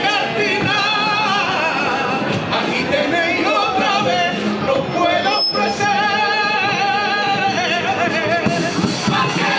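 Carnival comparsa, a male street chorus, singing a pasodoble in several voices, with wavering held notes; about halfway through a long note is held for nearly two seconds.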